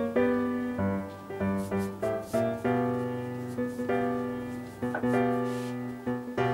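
Background piano music: notes struck one after another and left to ring, over held low tones.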